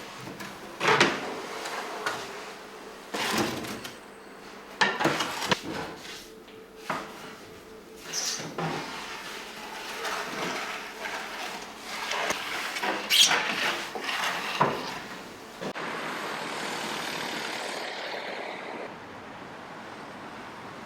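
Wooden knocks and scrapes: several sharp clacks and sliding sounds, as of wooden boards or a baker's peel being handled. About three quarters of the way through they stop and a steady hiss takes over.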